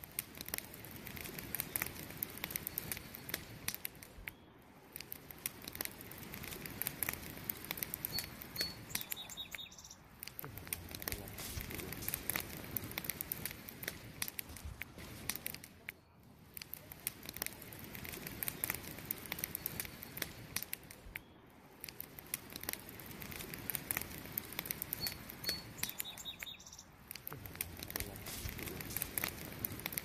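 Wood campfire burning: a soft hiss of flames with frequent sharp crackles and pops from the logs, swelling and easing every few seconds.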